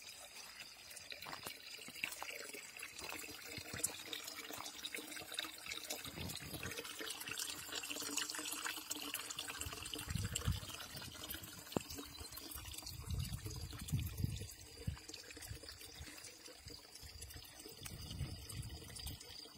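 Thin stream of water pouring from a village fountain's metal spout into a stone trough, splashing steadily, with a few low thumps on the microphone around the middle.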